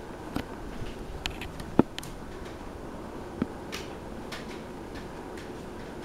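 52-inch Hunter Grand Lodge ceiling fan running, a steady low noise, with a handful of short light clicks scattered through it.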